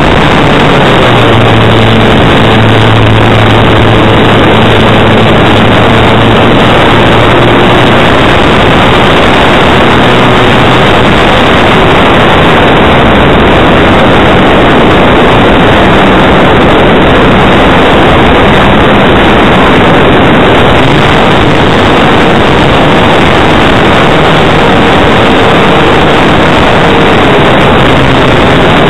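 Loud, steady wind rush over the microphone of a small camera mounted under an aircraft's wing in flight, with a low drone from the aircraft's motor and propeller.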